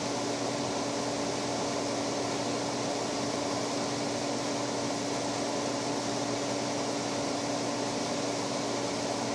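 Steady machine hum: one constant low tone over an even hiss, with no change in level or pitch.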